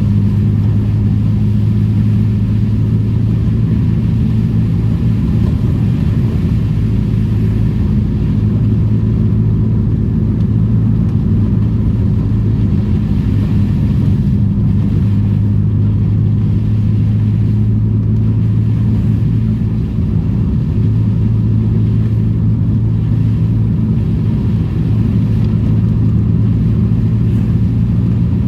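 Old Daihatsu Charade's engine running at a steady pitch while driving, a constant drone over road noise.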